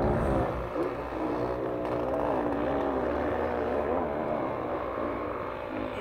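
Enduro motorcycle engine revving up and down again and again as it climbs a steep hillside, its pitch rising and falling about every half second.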